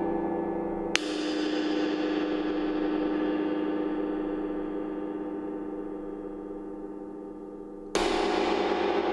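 A 22-inch Chinese wind gong struck with a mallet twice, about a second in and again near the end. Each stroke sets off a dense, shimmering ring of many overtones that slowly fades, the high overtones dying away first.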